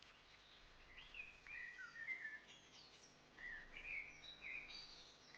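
Faint songbird chirping: two short runs of quick notes that rise and fall in pitch, the first starting about a second in and the second just past the middle.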